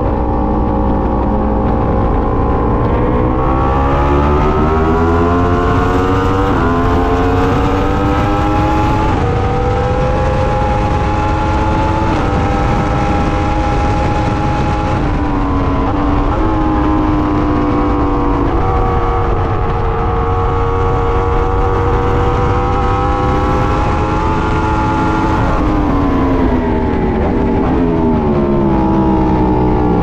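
Yamaha R1 inline-four sportbike engine under hard throttle with heavy wind rush on an onboard microphone. The pitch climbs through the gears over the first several seconds and holds high, with a short dip about halfway. It falls away over the last few seconds as the bike brakes and downshifts for a corner.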